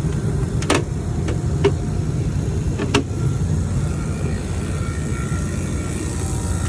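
Steady low machine rumble of running rooftop refrigeration equipment, with a few sharp clicks and taps, four of them in the first three seconds, as a timer is fitted into place.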